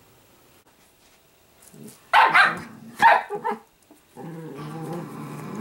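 Italian greyhound barking twice, about two seconds in and again a second later, then growling steadily from about four seconds in: rough play between two dogs.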